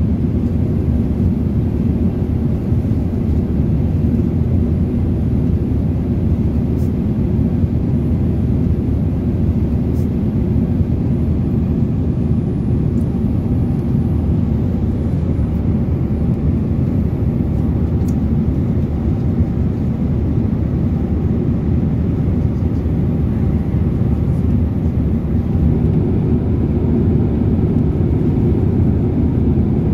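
Steady cabin noise inside a Boeing 787-8 in flight: an even, unbroken low rumble of airflow and its Rolls-Royce Trent 1000 engines.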